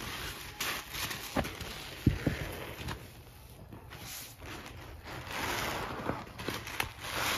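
Foam-soaked sponges squeezed and squished by rubber-gloved hands in a bowl of thick Ajax paste suds: wet squelching and fizzing foam, with a few sharp squelches in the first half, the loudest about two seconds in.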